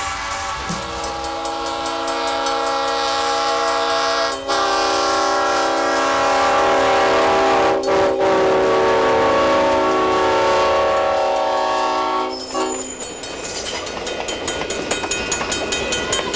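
Diesel locomotive's air horn sounding three long blasts, each with several notes together and separated by brief breaks. The horn stops about three-quarters of the way through, and a rapid, even clatter of the passing train follows.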